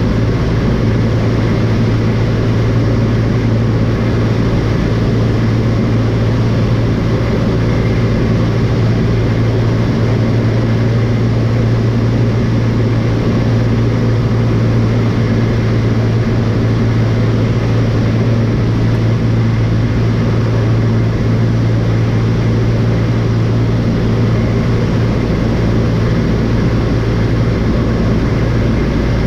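Light airplane's piston engine and propeller running at a steady speed, a loud, even, low drone.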